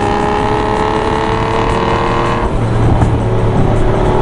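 Aston Martin V12 Vantage's V12 engine, through a Flowmaster exhaust, pulling hard with its note climbing steadily. About two and a half seconds in, the note drops away into a lower rumble as the driver backs off or changes gear, then comes back near the end.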